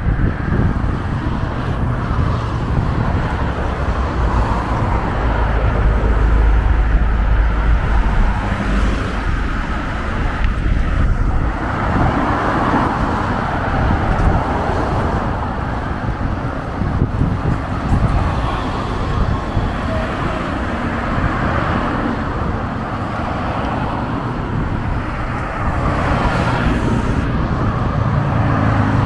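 Road traffic on a city street: cars passing close by, with a heavy low rumble from about four to nine seconds in.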